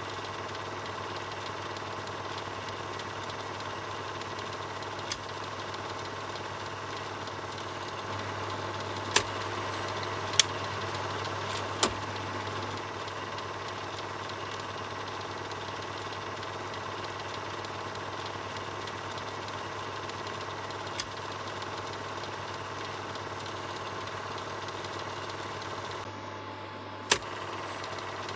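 Film projector running with a steady mechanical whir and rattle. Several sharp clicks stand out along the way, the loudest about nine, ten and twenty-seven seconds in, and the sound briefly drops just before the last click.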